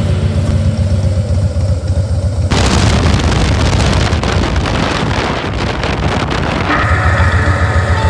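Harley-Davidson Breakout's V-twin engine running with a steady low rumble as the bike is ridden. From about two and a half seconds in, wind buffeting the microphone swamps it for about four seconds, then the rumble comes through plainly again.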